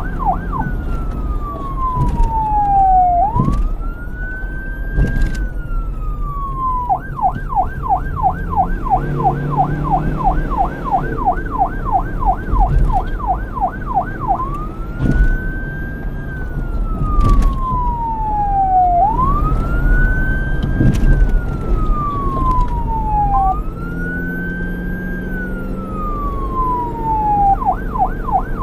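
Police car siren cycling between its modes. It gives a fast yelp of about three warbles a second, then slow wails that rise quickly and fall away over a few seconds each. It switches back to the yelp near the end, with a low rumble underneath.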